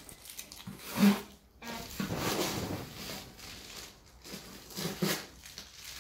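A cardboard parcel and its packaging being handled: rustling and scraping in a few separate short bursts, about a second in, again two to three seconds in, and around five seconds in.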